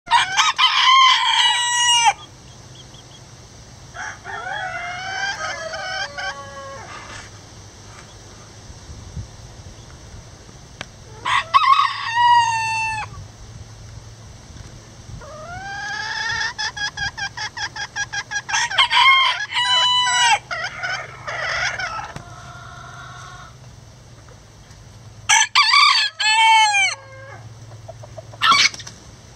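Roosters crowing about five times, with softer clucking calls between the crows.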